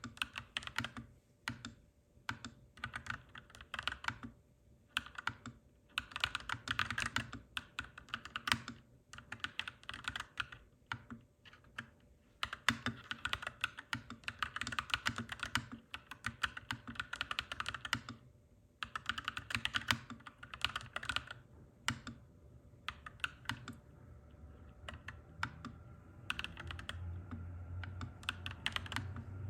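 Mechanical keyboard being typed on in fast bursts of clacky keystrokes with short pauses between them. Near the end a low rumble builds up underneath the typing.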